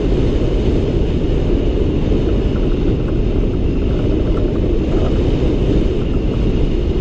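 Steady rush of wind buffeting the microphone of a hang glider in flight, a dense low noise without any pitch.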